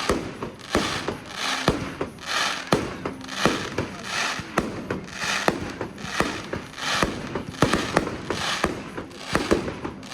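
Fireworks display: a steady run of sharp bangs from bursting shells, roughly two a second, each followed by a hissing crackle.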